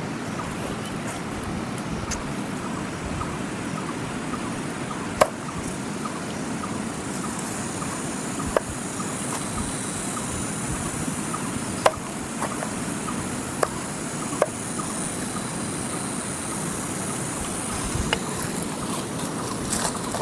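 Mountain river rushing steadily, with a few sharp knocks or taps every few seconds and a high hiss joining in partway through.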